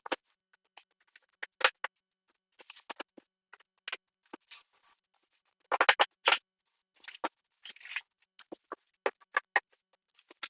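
Irregular short knocks, clicks and scrapes of vinyl flooring being handled and fitted into place, some in quick clusters with quiet gaps between.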